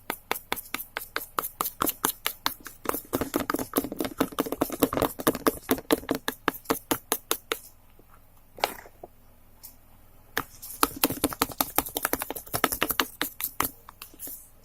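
A spoon stirring a thickening mixture of dishwashing liquid and shampoo, knocking against the container in rapid clicks, several a second. The clicking stops for a few seconds about halfway through, with a couple of single taps, then starts again.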